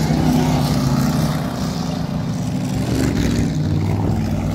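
Several race cars' Ford 302 small-block V8 engines running hard as they race past on a dirt track. The engine note is loud and steady, with small shifts in pitch.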